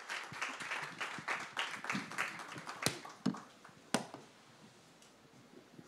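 Audience applause, dense at first, then thinning and dying out about four seconds in, with two sharper clicks as it fades.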